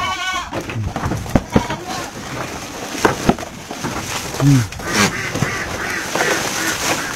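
Goats in a wooden slatted pen: a short bleat at the start and another, lower one about four and a half seconds in, over a run of knocks and rustling as the animals move and feed against the boards.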